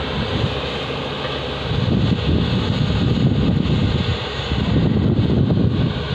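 Heavy diesel engines of a Tata Hitachi excavator and a Volvo 460 mining tipper running together: a steady low drone that grows louder and rougher about two seconds in.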